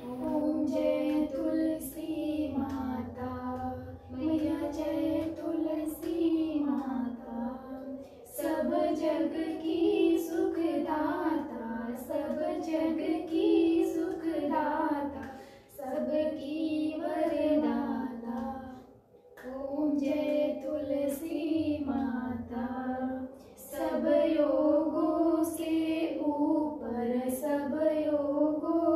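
A woman's voice singing a Hindu aarti hymn in a high, melodic line. The phrases last a few seconds each, with brief breaks between them.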